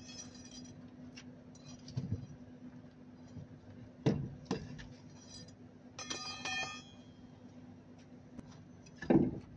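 Scattered dull knocks, the loudest near the end, and two short ringing metallic clinks, one at the start and one about six seconds in, over a steady low hum.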